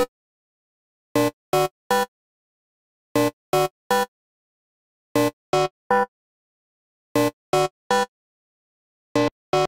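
Novation V-Station software synthesizer playing an experimental house lead: a repeating phrase of three short, clipped notes, the phrase starting again every two seconds, while its oscillator and envelope settings are changed.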